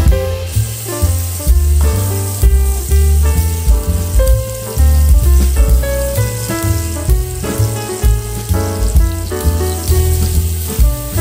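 Food sizzling as it fries in hot oil, the hiss setting in about half a second in, under loud background music with a bass line and beat.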